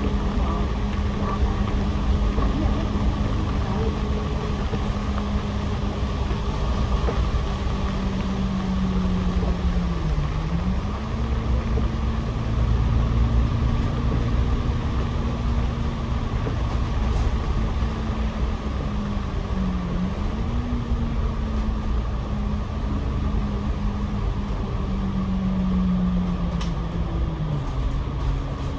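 Double-decker bus running, heard from its upper deck: a steady engine and drivetrain drone under road noise, its pitch dipping briefly a few times and climbing again near the end as the bus slows and pulls away.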